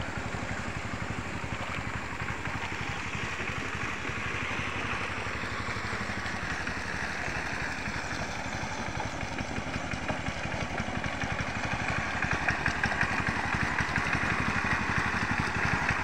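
Tractor engine running steadily while working a rice paddy. It gets louder about twelve seconds in.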